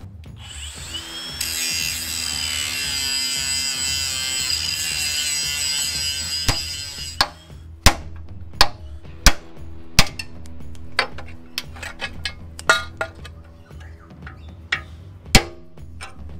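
Angle grinder spinning up and grinding steel for about seven seconds. It cuts off, and a hammer then strikes a steel punch a dozen or so times in an irregular rhythm, driving rivets out of a steel chassis bracket. Background music plays underneath.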